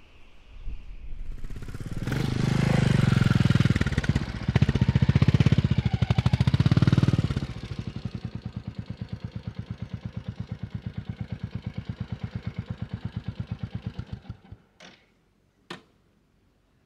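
Royal Enfield Classic 350's single-cylinder four-stroke engine revving for a few seconds, then settling to an even idle of roughly eight to ten beats a second. It cuts off about fourteen and a half seconds in, followed by two sharp clicks.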